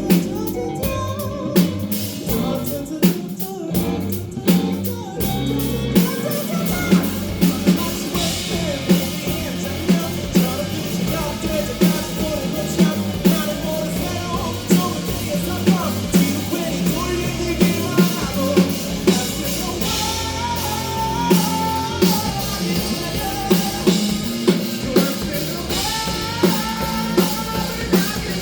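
Live rock band playing, with a drum kit hitting a steady beat under guitar and bass.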